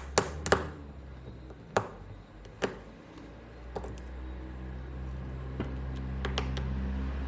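Small screws being removed from a smartphone's middle frame: scattered sharp clicks and taps of the screwdriver and small metal parts, about seven in all, over a low steady hum that grows stronger about four seconds in.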